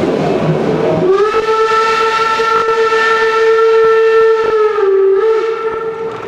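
Steam whistle of steam locomotive 24 009 blowing one long blast of about four seconds, its pitch dipping slightly just before it stops. The rumble of the running train is heard before the whistle starts.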